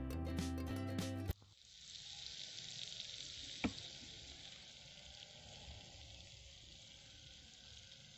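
Background music stops abruptly just over a second in. Then a faint steady sizzling from the hot, freshly baked eggplant rolls in their glass baking dish, with a single click near the middle.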